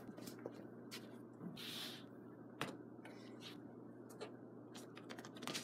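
Faint scattered taps and scuffs of a soccer ball and a foot on a hardwood floor, with a brief scrape about two seconds in and a quick run of clicks near the end, over a steady low hum.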